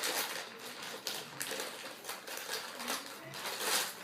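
Packaging rustling and crinkling in irregular bursts as hands unwrap a skateboard truck.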